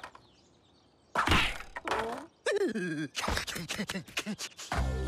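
Cartoon sound effects: after about a second of near silence, a sudden loud whooshing hit, then a short gliding vocal sound from a character and a quick run of sharp clicks, with background music starting near the end.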